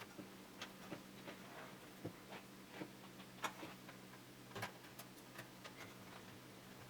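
Scattered light clicks and taps of a motherboard and its screws being handled and fitted into a PC case, at an irregular pace, over a faint steady hum.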